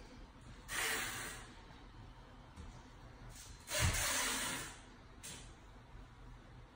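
Hydraulic two-post car lift being lowered: two short hissing releases, the second beginning with a low thump.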